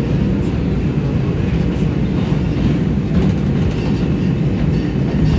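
New York City subway train rolling slowly along an elevated station platform, heard from inside the car: a steady, loud rumble of wheels on rails with some clatter.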